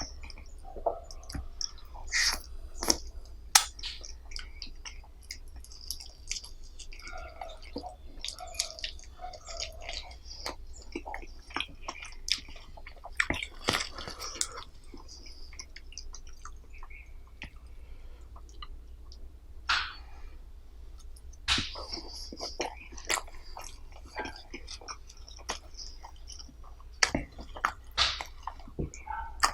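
Close-miked eating: a person chewing and biting food, with wet mouth sounds, lip smacks and sharp irregular clicks, a few of them noticeably louder.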